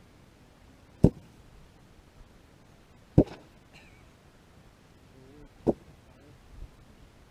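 Three single rifle shots from an IWI X95 Tavor in 5.56 mm, fired about two seconds apart, each a sharp crack.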